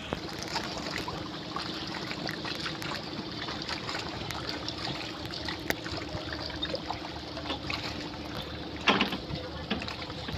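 River water lapping and splashing close by, with small drips and slaps and a low steady hum underneath. A louder splash or knock comes about nine seconds in.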